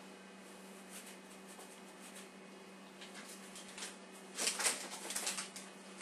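Paintbrush scrubbing across canvas in a run of short strokes, loudest a little past the middle, over a faint steady hum.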